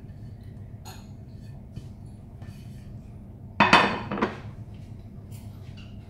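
A white ceramic dish set down on a hard countertop: one loud clatter with a short ring about three and a half seconds in, with a few lighter clicks before and after.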